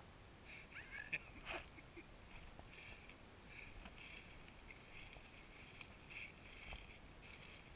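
Very quiet outdoor ambience with faint, scattered high chirps and a few soft ticks.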